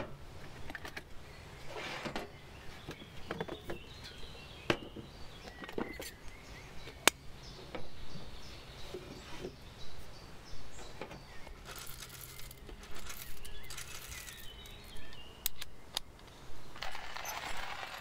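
Metal clinks, taps and knocks of coffee-making gear being handled: a stainless hand coffee grinder, a tin and a moka pot set down and moved about, with birds chirping faintly.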